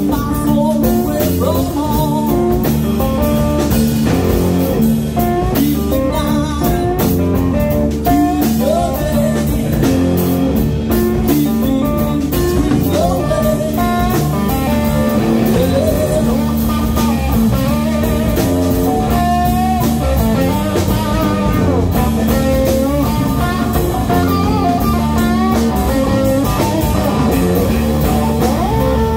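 Live blues-rock band playing: electric guitars over a steady drum kit beat, with a lead line moving above the rhythm.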